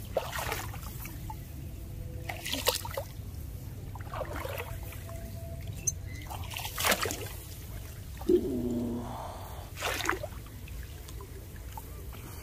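Shallow water splashing and trickling as a small mesh dip net is swept through a flooded rice field, in about five separate splashes a second or two apart, over a steady low rumble.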